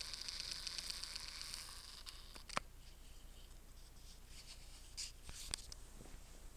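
Faint scratchy hiss with many small clicks, fading after about two seconds, then a sharper click about two and a half seconds in and two more near five seconds.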